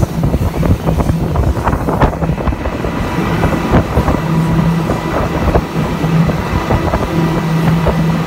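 Quad 300-horsepower outboard motors running at high speed: a steady low drone with a faint high whine, mixed with heavy wind noise on the microphone and frequent short thumps.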